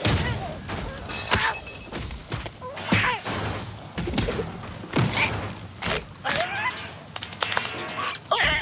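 Cartoon brawl sound effects: a string of thumps and whacks mixed with short squawks and cries from the cartoon ostriches as they scuffle.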